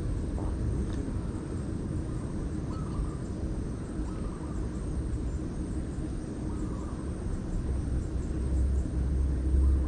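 Outdoor background dominated by a steady low rumble that swells louder near the end, with a few faint short chirps.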